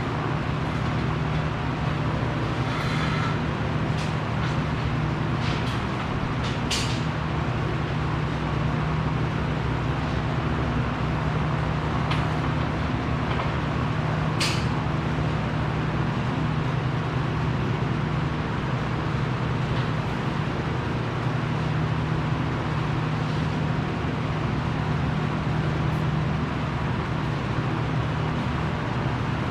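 A steady machine hum that holds one pitch throughout, with a few short clicks and knocks scattered through it.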